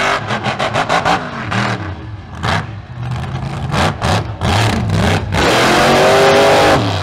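Mega truck engine revving hard in repeated short bursts as the truck jumps and spins in the dirt. Near the end the engine winds up in one long rising rev, the loudest part.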